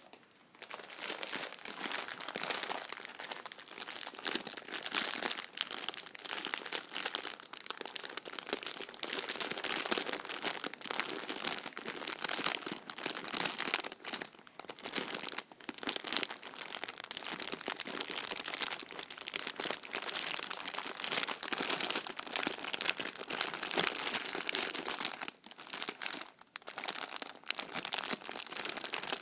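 Clear plastic bag of McVitie's Cheese Savouries crackers crinkling steadily as a hand squeezes and handles it, with the small crackers shifting inside. There are a few short pauses partway through and a couple more near the end.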